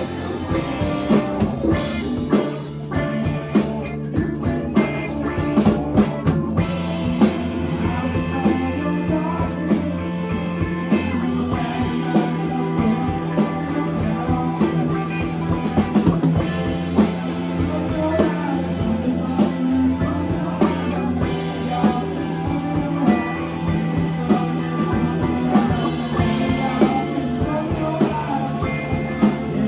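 Live rock band playing a song, with a steady drum-kit beat under sustained instrument tones.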